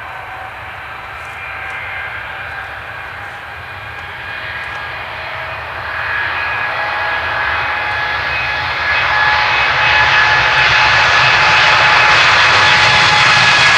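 Boeing 787-8's twin Rolls-Royce Trent 1000 turbofans on a takeoff roll. The engine roar and high fan whine grow steadily louder as the aircraft rolls toward and past the listener.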